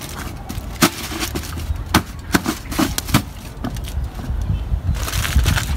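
Metal pot lid knocking and clinking several times, about once or twice a second through the first half, as it is set on a foil-covered cooking pot and pressed down, over a steady low rumble.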